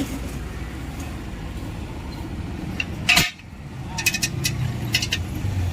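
Metal clinks, like tools knocking together, over a steady low background rumble. A loud sharp hit comes about three seconds in, and a few short ringing clinks follow.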